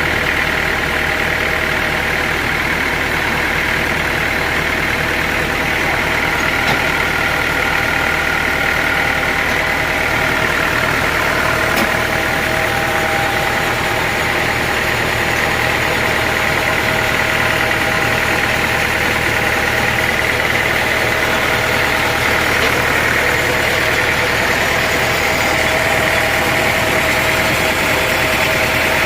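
Sawmill machinery running steadily: a continuous low hum with a steady high whine over it.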